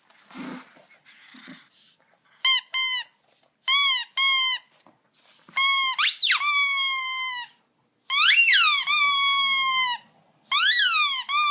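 Squeaky dog toy being squeezed: two quick pairs of short squeaks, then three longer, drawn-out squeals that rise and fall in pitch.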